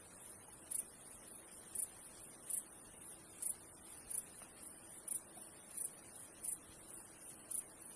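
Very high, thin animal chirping in short, irregular pulses, several a second.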